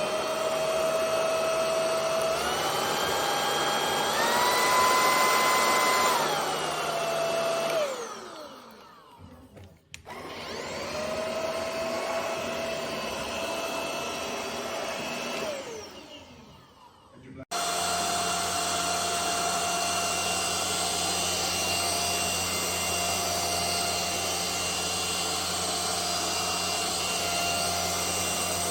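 Anyson cordless stick vacuum's motor spinning up to a steady whine, stepping up twice to higher power settings and back down, then switched off and winding down. It is started again and switched off a second time, winding down once more. After a sudden cut it runs steadily on.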